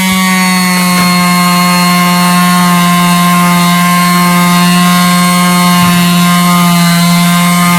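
Electric sander running steadily at full speed with 40-grit paper on the car's scuffed body trim: a loud, even whine.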